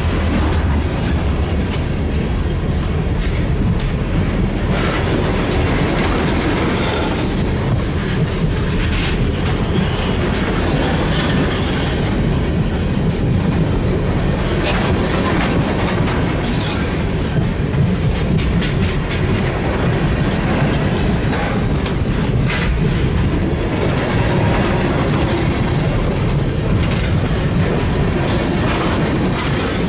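Railroad tank cars of a freight train rolling past close by: a steady rumble of wheels on rail, with irregular clicks and knocks as the wheels pass over the track.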